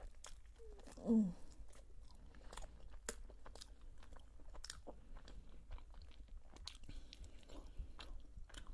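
Khinkali dumplings being chewed with the mouth, with many small sharp clicks. A short hum from the eater about a second in.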